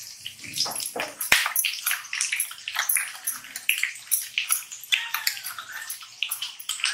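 Metal spoon stirring spice powders into water in a steel bowl, fast and rhythmic: liquid swishing, with light scrapes and clinks of the spoon against the bowl at about three or four strokes a second.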